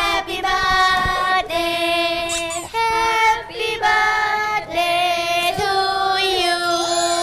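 A group of young women singing a birthday song together, in drawn-out held notes.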